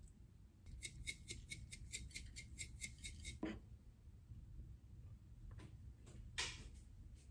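Sesame seeds being ground over the kimchi: a quick run of dry, evenly spaced clicks, about five a second, lasting some two and a half seconds. A single soft knock follows, and a short scrape comes later.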